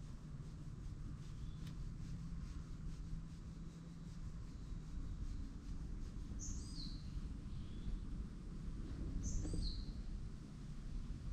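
A stray cat purring as its throat is stroked: a steady low rumble. Over it, a bird gives a short high call that falls in pitch, once past the middle and again about three seconds later.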